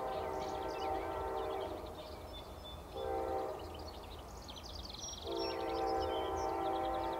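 Locomotive multi-chime air horn sounding a steady chord: a long blast ending under two seconds in, a short blast about a second later, then another long blast from about five seconds in, the long-short-long end of a grade-crossing signal. A low rumble runs underneath.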